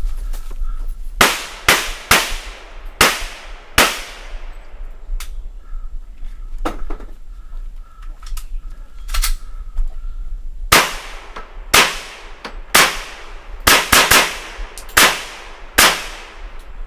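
.40-calibre Glock pistol firing: about five shots in the first few seconds, a pause of several seconds, then a quicker string of about eight shots near the end. Each shot has a short ringing tail inside the wooden shooting structure.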